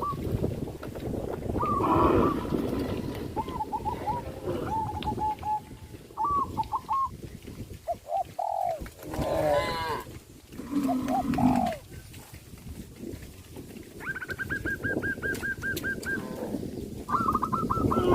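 Mixed farmyard animal and bird calls: short chirping notes, some in quick repeated runs, and a few longer calls, over a steady low background noise.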